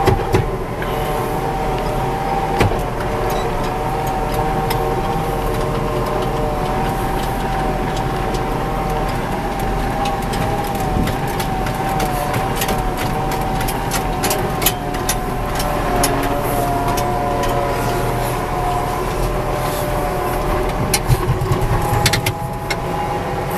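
Farm tractor engine running steadily at slow driving speed across cornfield rows, heard from inside the cab, with a steady whine over the engine rumble. Scattered clicks and rattles come through, thickest in the middle stretch, as the tractor bounces over the rows.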